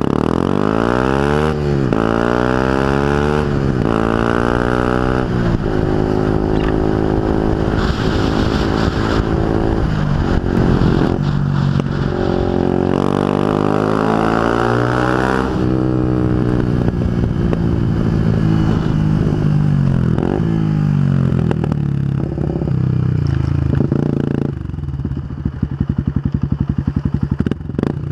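Yamaha WR125X's single-cylinder four-stroke engine breathing through an Arrow full exhaust system, revving up through the gears in three quick rising runs, holding, climbing again, then winding down as the bike slows. Near the end it settles to a low, slow, even beat.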